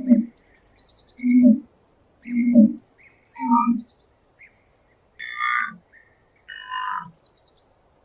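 Animal calls: four short, low calls about a second apart, then two higher calls, with faint high bird-like chirps over them.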